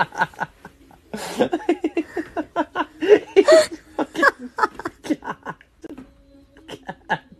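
A person laughing hard off-camera, in runs of quick "ha-ha" pulses broken by a couple of sharp, breathy gasps.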